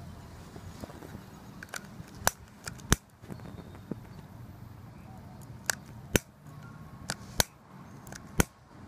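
About six sharp clicks at irregular intervals of a second or so: the igniter of a torch lighter being clicked while its flame fails to stay lit.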